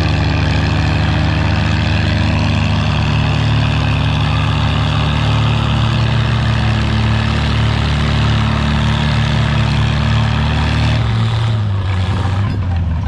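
Oliver 77 and Farmall 350 tractor engines running together under heavy load, pulling a sled as a team on one bar. About eleven seconds in their pitch drops as the clutches go in and the pull ends.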